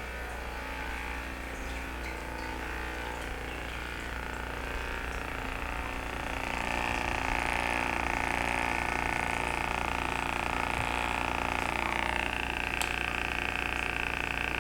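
Heated electric massager running with a steady motor hum. It grows louder about six seconds in, and its tone shifts higher about twelve seconds in.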